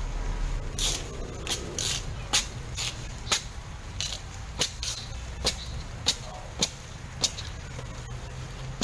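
A woven coconut-leaf roof panel being carried and shifted on foot: sharp, crisp rustling clicks, roughly two a second, from the leaves and the walker's steps.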